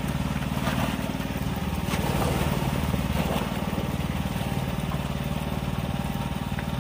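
A small engine running steadily with a constant low hum. Over it comes faint scraping and rustling as a plastic basket scoops small fish, a little after the start and again in the middle.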